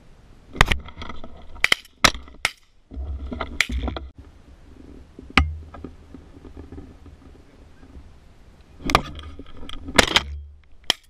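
Short, sharp goose honks, about ten of them in irregular groups of one to three, over an on-and-off low rumble of wind or handling on a gun-mounted camera.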